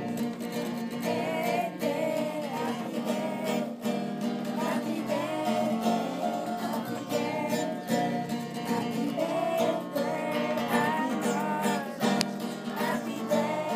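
A group of children singing a song, with an acoustic guitar strummed along.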